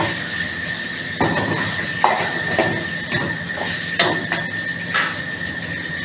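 Metal ladle clanking and scraping against a wok about five times as food is stirred over a gas burner, with a steady high whine underneath.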